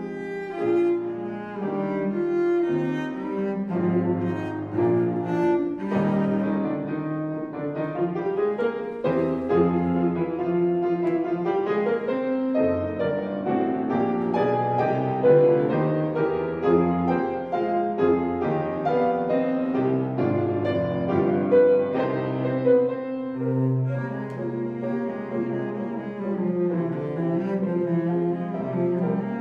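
Cello and grand piano playing together without pause: the cello bowed in a continuous melodic line over the piano accompaniment, which stands in for the orchestra in a cello concerto.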